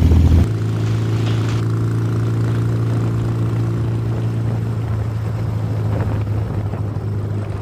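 Ural sidecar motorcycle's 650cc flat-twin engine running steadily at road speed, a constant low engine drone with road noise.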